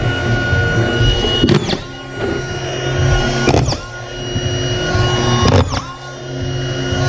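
Power screw gun whining steadily while fastening type C drywall. About every two seconds, four times, its pitch dips briefly as it drives a screw home into the board.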